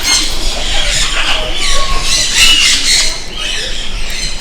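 Many aviary birds squawking and chattering at once, shrill overlapping calls with a brief clear whistled note about two seconds in.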